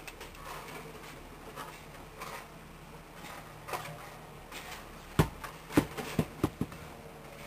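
A quick run of about five sharp knocks or thuds, starting about five seconds in, over faint rustling.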